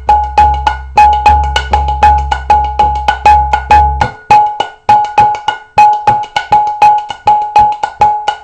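Mridanga drum played in a fast, intricate rhythm that uses the dhak stroke (an edge knock on the treble head together with the bass head). The strokes are sharp and ringing, about four to five a second. Booming bass-head strokes run under them for the first four seconds, drop out, and return at the very end.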